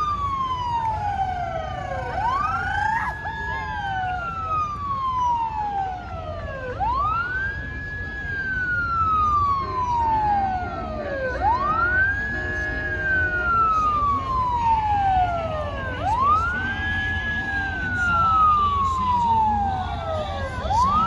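Emergency siren sounding a slow wail: each cycle rises quickly, then falls slowly over about four and a half seconds, repeating steadily. A fainter second siren tone overlaps it in the first few seconds.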